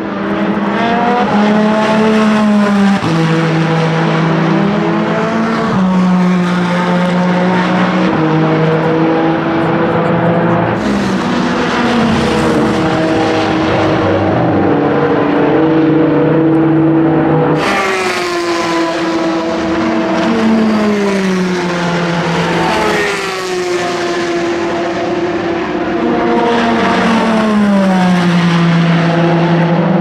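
Peugeot 9X8 hypercar's twin-turbo V6 at racing speed on track, over several separate passes. The engine note steps from gear to gear and falls away in pitch as the car goes by.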